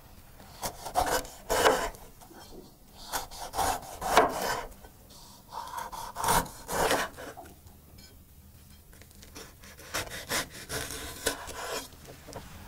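A kitchen knife slicing a red bell pepper into strips on a wooden cutting board: crisp cuts through the pepper and knocks of the blade on the board, in four short runs of several strokes with pauses between.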